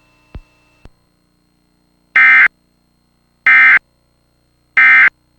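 Emergency Alert System End of Message signal: three short, loud bursts of SAME digital data tones about a second apart, the code that closes the severe thunderstorm warning broadcast. Two faint clicks come just before them.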